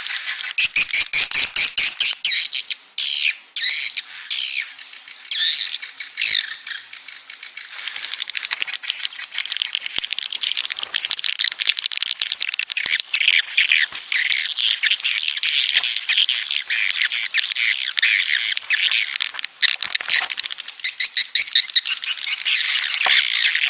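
Swiftlets twittering: a dense stream of rapid, high chirps and trills, with a short lull a few seconds in before the chattering picks up again. This is a swiftlet mating and breeding call ('birahi beranak') of the kind played to draw the birds to a nest house.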